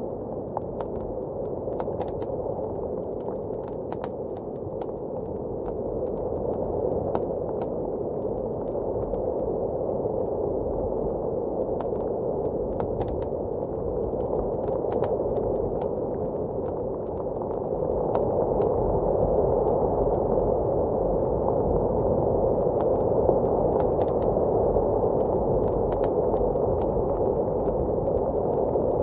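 Fireplace crackling with scattered sharp pops over a steady, muffled blizzard wind, which grows a little louder partway through.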